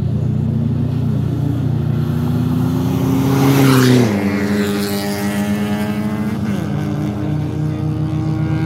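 A Toyota Fortuner SUV accelerating down a drag strip, its engine note climbing as it approaches. It passes close by at speed about four seconds in, the engine pitch dropping sharply as it goes past, then runs on as it pulls away. A steady low engine drone sits underneath.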